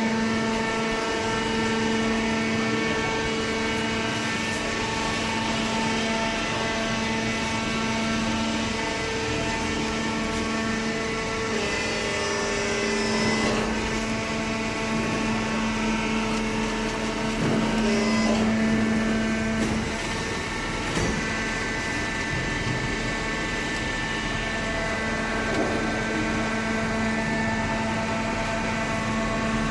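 Steady electric machine hum of a cardboard baler running, with a few brief knocks and clanks around the middle.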